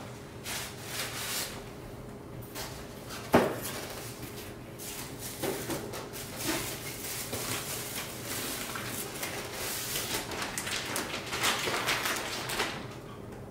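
Packaging being rummaged through inside a tall cardboard box, with cardboard and plastic wrap rustling and crinkling, and a sharp knock about three and a half seconds in. The crinkling of plastic bags is densest near the end as wrapped parts are lifted out.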